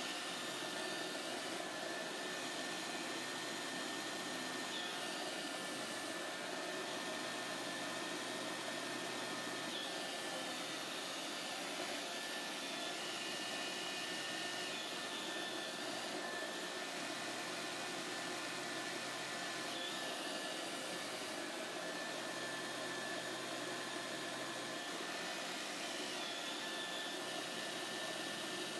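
Roomba 535 robot vacuum running: a steady whir with a thin high tone held throughout, its low hum shifting every few seconds.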